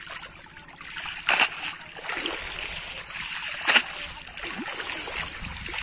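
Water splashing and sloshing as a cast net is worked through shallow muddy water, with two sharp splashes, one about a second and a half in and one near four seconds in.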